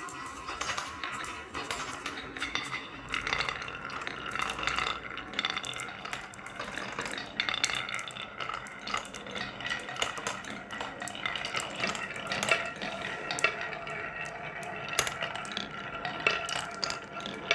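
Marbles rolling down a wooden marble run, a continuous clatter with many sharp clicks as they hit and knock along the wooden track pieces.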